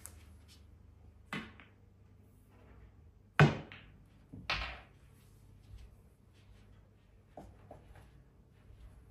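Pool cue and balls knocking on a small home pool table: a sharp crack about three and a half seconds in, the loudest sound here, another knock about a second later, with a lighter knock before them and a few faint clicks near the end.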